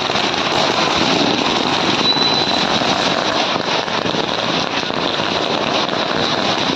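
Ground fountain fireworks spraying sparks, a loud steady hissing crackle with no break.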